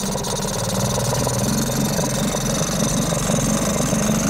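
Tohatsu 3.5 hp two-stroke outboard motor running steadily at low throttle, being warmed up just after a hard, stalling cold start.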